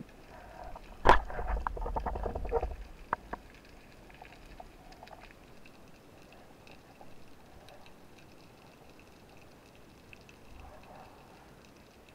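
Underwater, a sharp click then about two seconds of clacking and rattling from the speargun shaft and line as the speared fish struggles on it, with a couple of separate knocks after. Then only a faint underwater hiss with light ticks.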